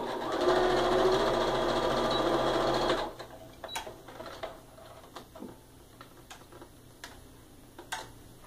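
Sewing machine stitching a seam at a steady speed, then stopping about three seconds in, followed by a few light clicks.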